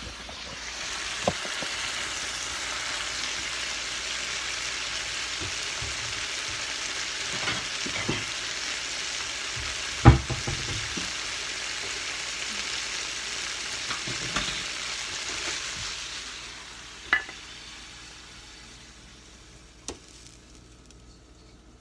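Teriyaki shrimp sizzling steadily in a frying pan, with scattered sharp knocks of utensils and the pan, the loudest about ten seconds in. The sizzle fades away about three quarters of the way through as the pan comes off the heat.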